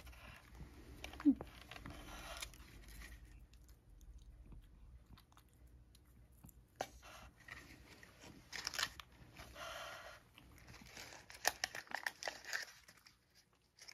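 A cat chewing and crunching small dry cat treats (Churu Bits), with bursts of crackly crunching. About a second in there is one short, voice-like squeak.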